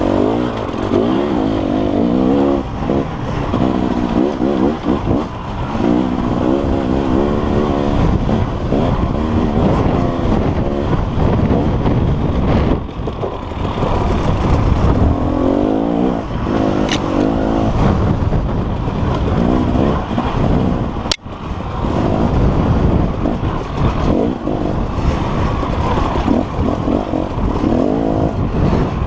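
KTM dirt bike engine heard from on board, revving up and down over and over as the throttle is worked on and off. A single sharp click with a brief dip in the engine sound about two-thirds of the way through.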